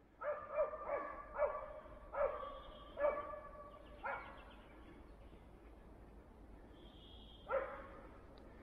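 West Siberian laika barking: a run of about six barks in the first four seconds, then a single bark near the end.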